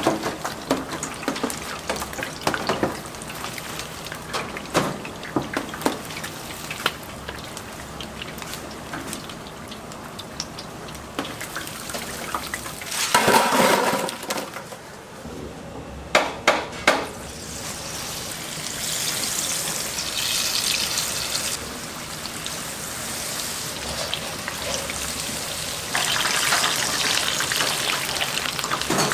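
Street-stall cooking: hot oil sizzling steadily with scattered clinks and knocks of utensils and pans. A louder noisy burst comes about halfway through, and the sizzling hiss grows brighter near the end.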